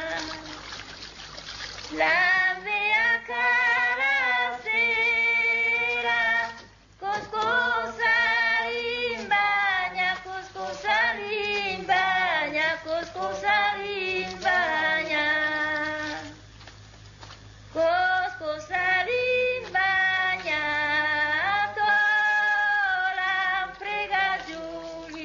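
Unaccompanied female singing: a slow folk-like melody in long held, gliding notes. It breaks off briefly about seven seconds in and drops to a quieter stretch around sixteen seconds before resuming.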